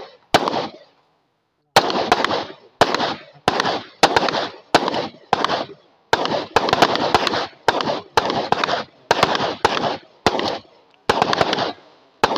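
9mm Browning pistol fired in a rapid string, about two shots a second, each sharp report followed by a brief ringing echo. After a single shot near the start there is a short pause, then the string runs on.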